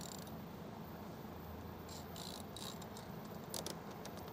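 Faint, irregular clicking of a hand ratchet turning a 10 mm socket on an extension, backing out a side mirror mounting bolt. The clicks come in short runs, mostly in the second half, over a low steady hum.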